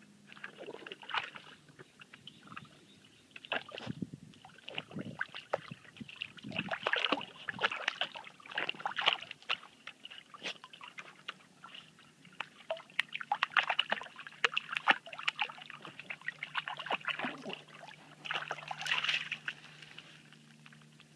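A dog pawing and splashing in a plastic kiddie pool: irregular sloshes and splashes of water, coming in bursts with short pauses between.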